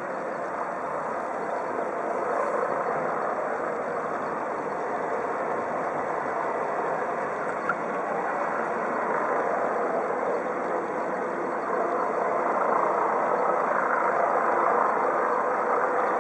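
Eurocopter EC 135 helicopter in flight overhead: a steady whirr of rotor and turbines that grows a little louder in the second half. There is one short click about halfway through.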